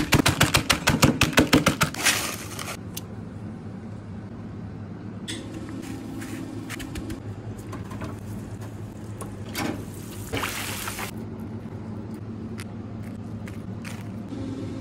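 A meat mallet pounding bags of potato chips, about six quick blows a second with the chips crunching, stopping after about two seconds. Then a steady low kitchen hum with a few short scrapes and a brief hiss about ten seconds in.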